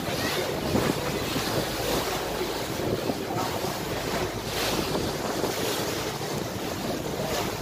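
Wind buffeting the microphone and water rushing past a moving ferry, with a low steady hum underneath.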